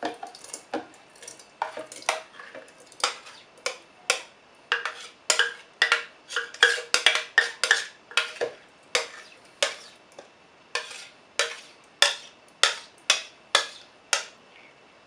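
A spoon scooping thick fig-and-milk paste and knocking against the side of a glass container. The strokes come about one or two a second.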